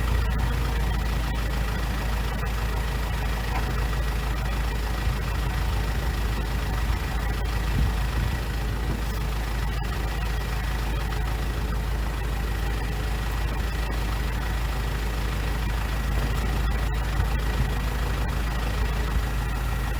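Kubota L4701 tractor's diesel engine running steadily, with a thin steady whine above it, while its loader forks work a log.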